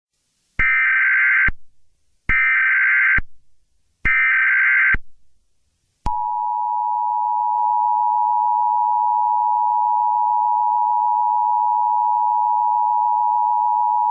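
Emergency Alert System header: three short bursts of screeching SAME data tones, followed from about six seconds in by the steady two-tone EAS attention signal that announces an alert.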